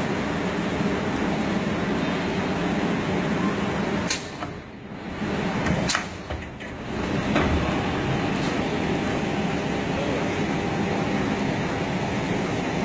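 Small spiral paper tube making machine running with a steady mechanical hum. About four and six seconds in, a sharp click comes and the noise briefly drops.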